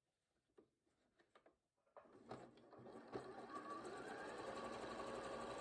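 Bernina B 38 sewing machine stitching through thick hand-knitted wool. It starts about two seconds in and runs steadily and fairly quietly.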